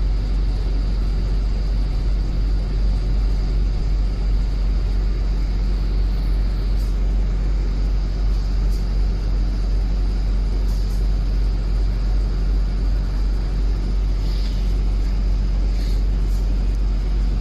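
Inside the upper deck of a London double-decker bus on the move: a steady low rumble from the engine and road, with a faint steady high whine and a few brief rattles or clicks.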